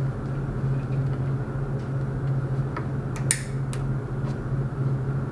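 Plastic hose clip ratcheting shut as it is squeezed by hand onto a hose: a few sharp clicks a little past halfway, over a steady low hum.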